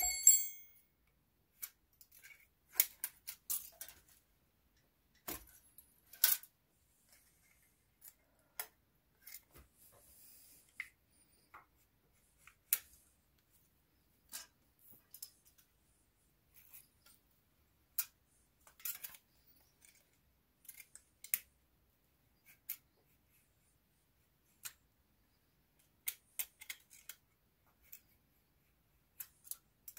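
Scattered metallic clicks and taps of a ring spanner and other hand tools on the rocker arm and tappet adjuster of a stopped Honda CG125 single-cylinder engine, as the valve clearance is set. A short ringing clink of metal comes right at the start.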